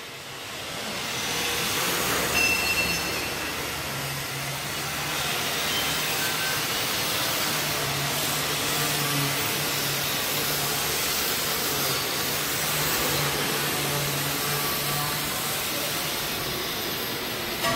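Steady factory machinery noise: a wide hiss with a low hum underneath that grows stronger a few seconds in.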